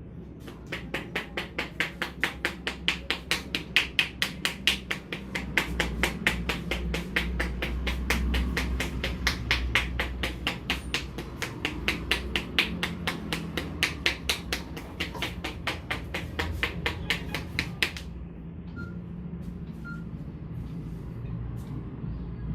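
Fast, rhythmic percussive hand strikes on the head during an Indian head massage, about four or five sharp slaps a second, stopping suddenly near the end, over a low background rumble.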